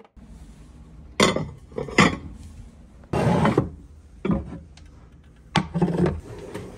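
Crockery and frying pans being handled and set down: about six clatters and knocks, one lasting about half a second, over a steady low hum.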